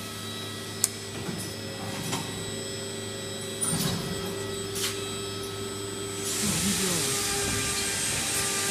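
CNC woodworking machine running: a steady motor hum with a few sharp clicks, and about six seconds in a louder steady hiss joins in.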